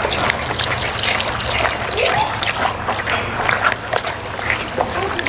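Thick flour batter being stirred in a container, with irregular wet sloshing and squelching as the flour mix and water are worked together; the batter is not yet at the wanted consistency. A steady low hum runs underneath.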